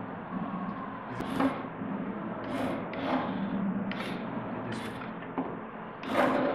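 Small geared 12 V DC motors of a robot chassis running on a 9-volt battery with a low steady hum, while the wires and the plastic switch box rub and scrape in the hands in several short scratchy bursts.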